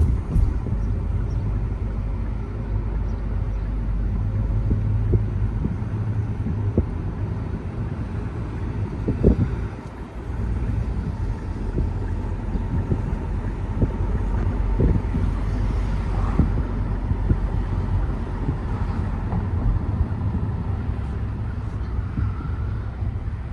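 Wind buffeting the microphone over a steady low rumble, with irregular thumps throughout.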